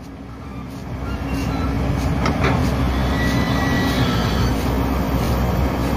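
Diesel engines of heavy earthmoving machinery running with a steady low rumble that grows louder about a second in, with a couple of faint knocks in the middle.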